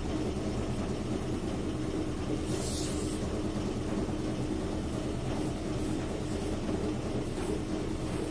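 A steady low mechanical hum and rumble, with a brief hiss about two and a half seconds in.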